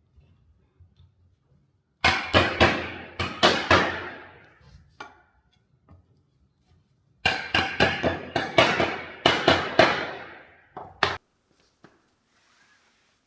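Two runs of quick hammer blows on wood, several strikes a second with a short ring after each. The first run is about two seconds long; the second is longer, about four seconds, and ends with two lighter taps.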